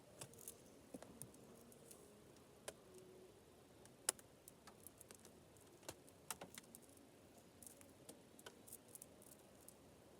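Faint, scattered metallic clicks and clinks of a tangled saw chain being handled and worked loose by hand, with one sharper click about four seconds in.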